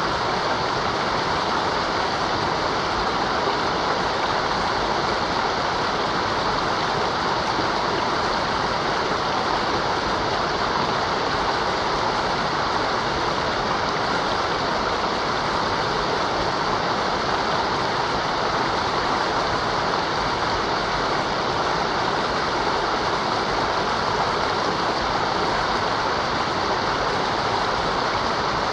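Mountain river rushing steadily over rocks, a continuous even roar of running water.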